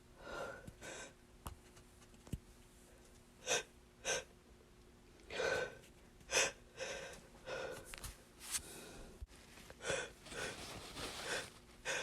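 A person's stuck sneeze building up: repeated short, sharp gasping in-breaths and sniffs, a dozen or so over several seconds, as a sneeze set off by dust fails to come out.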